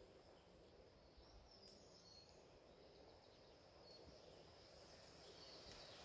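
Near silence: faint outdoor ambience, with a few short, faint high chirps scattered through it.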